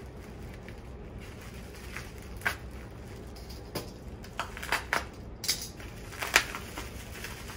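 Pink plastic packing bag being crinkled and unwrapped by hand: a run of short rustles and crackles, with sharper ones about two and a half, five and six and a half seconds in.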